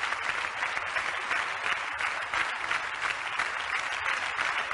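Large studio audience applauding, a steady, dense clapping.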